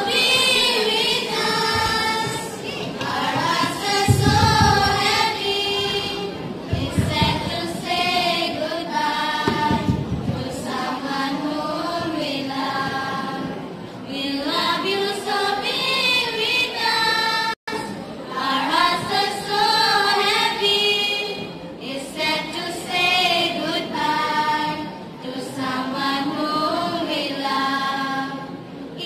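Children's choir singing together in phrases that rise and fall, with a few low thumps about four and ten seconds in and a momentary drop-out in the middle.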